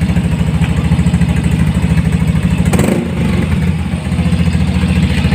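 Yamaha Mio i 125S scooter's single-cylinder four-stroke engine running through an Akrapovič muffler with its silencer (dB killer) fitted, idling with a short throttle blip about three seconds in.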